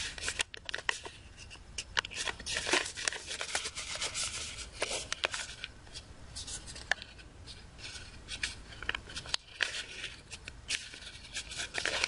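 Sheet of A4 paper rustling and crackling as hands fold and crease an origami box lid: a dense, irregular run of short rustles, rubs and crisp creasing sounds.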